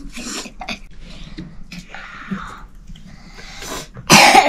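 Quiet sounds of eating from steel bowls: faint clicks of spoons and forks and soft breathing and chewing. About four seconds in, one short, loud sound cuts through, much louder than the rest.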